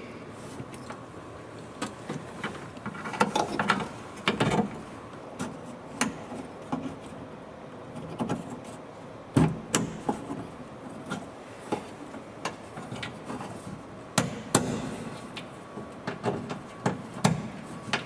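Plastic wiring connectors and harness clips being handled and snapped into place in a car door, making scattered sharp clicks and knocks with handling rustle between them.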